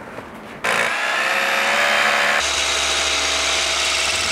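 DeWalt DCH263 cordless rotary hammer starting up about half a second in and drilling a 10 mm hole into a concrete wall in hammer-drill mode. Its steady running changes note a couple of seconds in, and it bores into the wet concrete easily.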